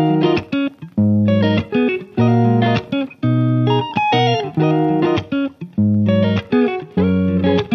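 Background music: a guitar-led tune with bass, played in short rhythmic phrases.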